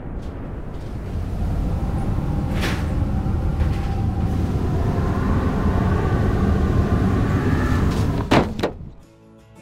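A low rumble that swells over several seconds, with a faint tone rising inside it, ending in two sharp hits about a third of a second apart, after which the sound drops away abruptly.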